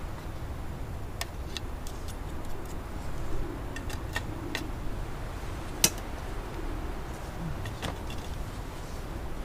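Scattered light clinks of metal cutlery against camp plates or mess tins while eating, with one sharper clink about six seconds in, over a low steady background rumble.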